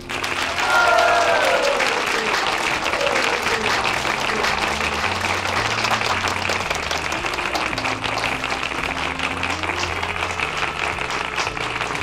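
Audience clapping and cheering, breaking out suddenly and loudest about a second in, with a few whoops in the first few seconds.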